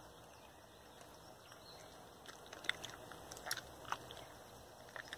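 Faint sticky squelches and small wet pops of homemade slime being squeezed and kneaded by hand, a few of them sharper clicks around the middle.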